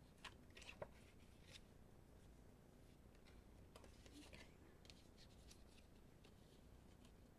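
Faint rustling and light ticks of paper cardstock and thread being handled as thread is wrapped around a card piece, a few small clicks in the first second and again around four seconds in.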